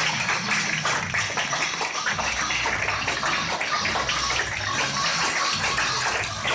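A roomful of people clapping steadily, a dense patter of many hands.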